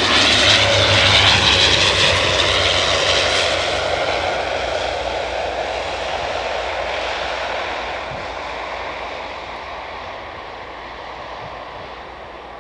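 BAe ATP airliner's two turboprop engines and propellers passing close on landing. The droning whine is loudest at first and falls in pitch as the plane goes by, then fades as it rolls away down the runway.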